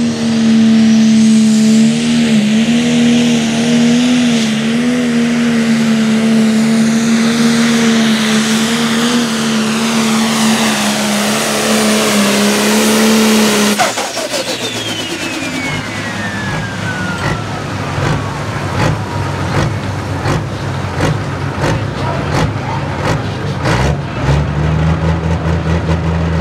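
Pro Stock pulling tractor's turbocharged diesel engine held at full throttle, a steady high note under load. About halfway through the throttle is chopped: the note drops suddenly and a turbocharger whistle winds down over several seconds while the engine crackles at idle, before it is revved up again near the end.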